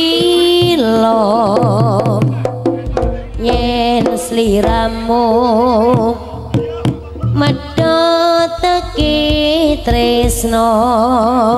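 Live Javanese jaranan gamelan music played loud. A held, wavering melody line runs over hand-drum strokes and a low bass.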